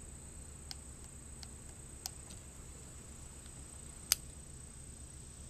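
A few faint metallic clicks from the action of a Model 1892 French ordnance revolver as the cylinder and hammer are worked by hand to check how the cylinder indexes. The sharpest click comes about four seconds in.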